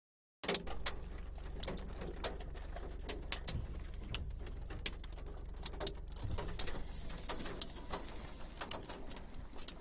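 Raindrops ticking irregularly on a car's windscreen and body over the car's steady low hum.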